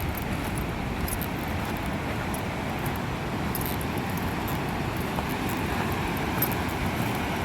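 Steady rushing of a river running high with a lot of water, an even, unbroken noise.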